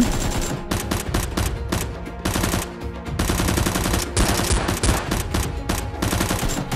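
Bursts of rapid automatic gunfire, the shots coming in quick succession, as a gun sound effect laid over a Nerf battle scene.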